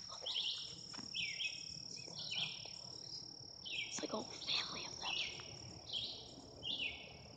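Insects calling: a steady high-pitched drone with short chirping calls repeating about once a second, each falling slightly in pitch. A couple of brief rustles in the grass break in.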